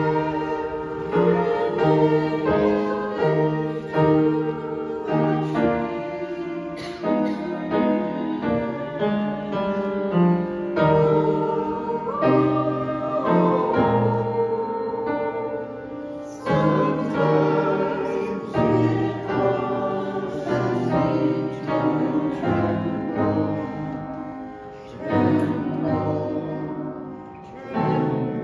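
Upright piano playing a slow hymn, with a small group of voices singing along.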